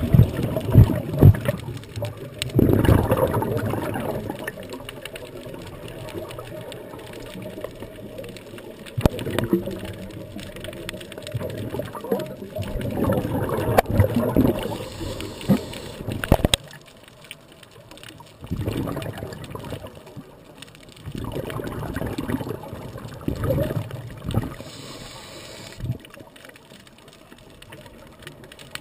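Scuba divers' exhaled bubbles gushing from the regulators in surges every three to five seconds, one with each breath, heard underwater through the camera housing and dull, with little treble.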